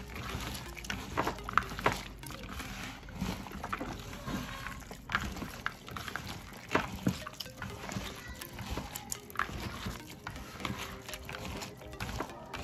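A bare hand squeezing and mashing grated soap noodles wetted with propylene glycol and shower gel in a bowl, giving irregular wet squelches and crackles.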